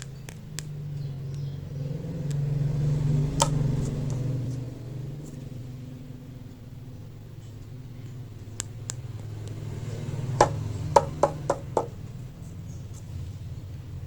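Hard plastic toys handled and tapped: a few sharp clicks, then a quick run of five taps in the second half, over a steady low rumble.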